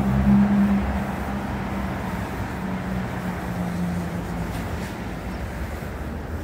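A motor vehicle passing in street traffic. Its engine hum is loudest about half a second in and fades away over the next few seconds.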